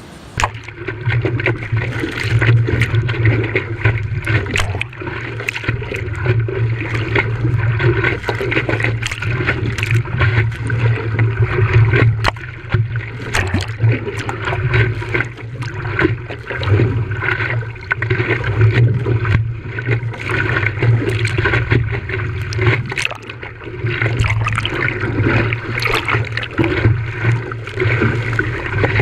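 Water splashing and sloshing around a stand-up paddleboard in choppy surf, with strong wind buffeting the microphone as a steady low rumble.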